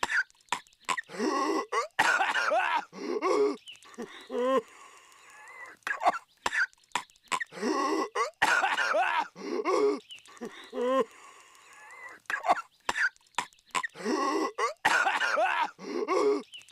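Cartoon character Patrick Star coughing violently. Fits of coughing come round about every six and a half seconds, with short sharp coughs between them, as a repeating loop.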